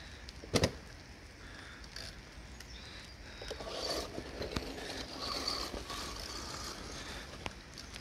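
Radio-controlled car driving over a leaf-covered dirt path, its electric motor whining faintly over tyre and leaf noise, loudest in the middle of the stretch. One sharp knock about half a second in.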